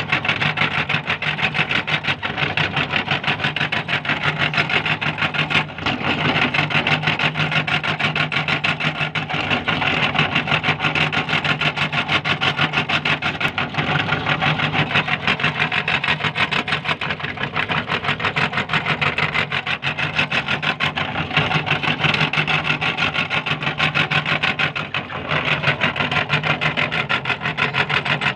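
Meat grinder running, grinding sticks of racket chalk: a continuous rasping, rattling grind over a steady motor hum, briefly easing about six seconds in and again near the end.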